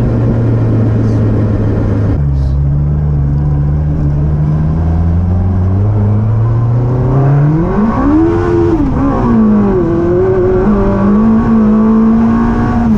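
Yamaha R1 inline-four motorcycle engine in a classic Mini, heard from inside the cabin on the move. The engine note changes abruptly about two seconds in and climbs slowly. About eight seconds in it rises sharply as the engine is revved hard, then falls back and holds steady.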